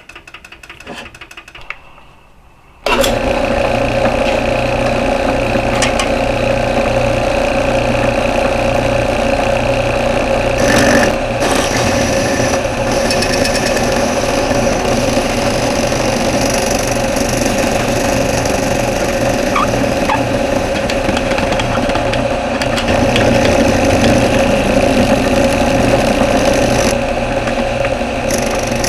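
A few handling knocks, then about three seconds in a drill press motor switches on and runs steadily, spinning a half-inch square end mill at about 700 rpm without cutting yet.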